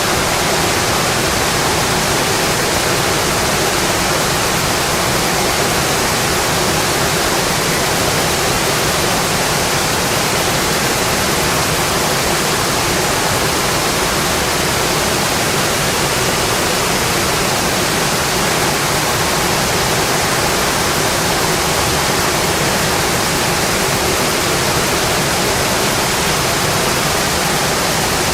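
Steady, dense rain: an even hiss with no single drops, taps or thunder standing out.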